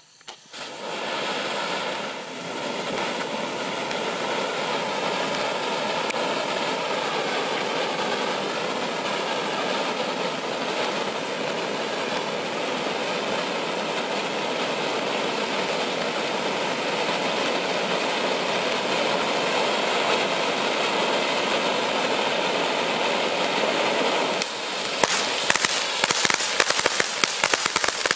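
Miracle Fireworks Eliza Elephant ground fountain hissing steadily as it sprays a column of sparks. Near the end it breaks into rapid crackling as its silver crackle effect starts.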